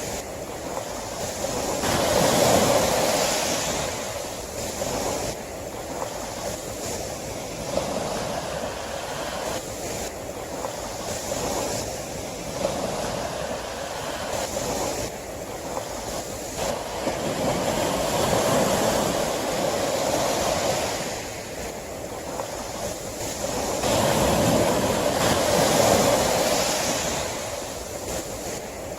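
Sea waves breaking and washing on the shore, the surf swelling and falling away every few seconds.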